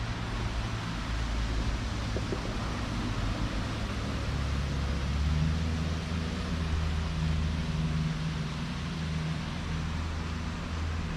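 Steady rushing of a waterfall, with a low steady hum that swells about five seconds in and eases near the end.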